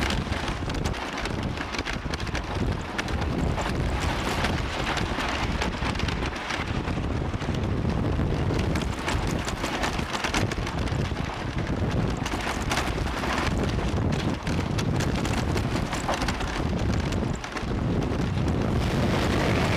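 Thunder Road wooden roller coaster train running along its track, with the train's wheels and cars clattering and rattling under heavy wind buffeting on the microphone.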